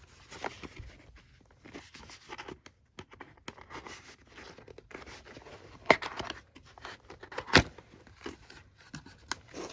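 Packaging on a boxed photobook set being torn open and crinkled by hand, with many small clicks and two sharp snaps about six and seven and a half seconds in.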